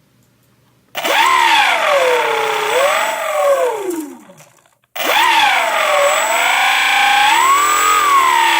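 A faulty motor whining, starting abruptly about a second in with its pitch rising quickly, then sagging and wavering. It winds down with falling pitch, stops, and starts again just before the midpoint, whining on. The whining and heavy vibration are the sign of a bad motor.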